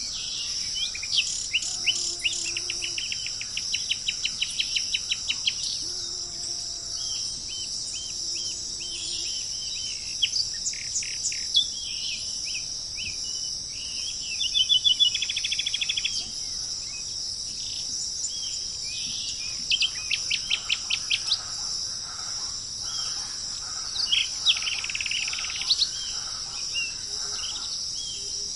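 Several wild birds chirping over a steady high drone of insects, with repeated short chirps and fast trills of notes; the loudest is a rapid trill about halfway through.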